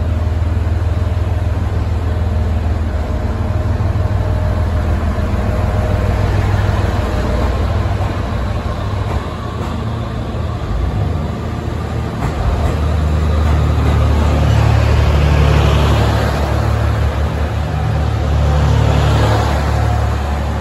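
JR East HB-E210 series hybrid diesel railcars pulling out and passing close by: a loud, steady low engine drone under running and wheel noise. The noise swells twice as the cars go by, with a faint rising whine each time.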